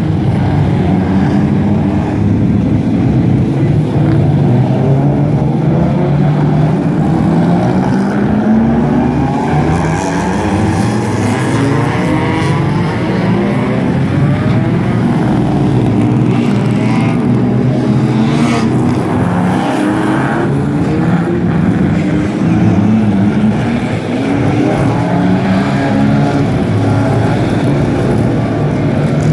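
Several historic touring race cars, among them Ford Escorts and a Ford Capri, crawl past at low speed with loud, unsilenced engines. Their revs rise and fall over and over as the throttles are blipped, and one engine note overlaps the next.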